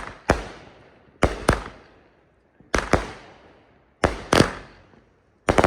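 Consumer fireworks going off in a quick string of sharp bangs, mostly in pairs about every second and a half, each bang trailing off with echo.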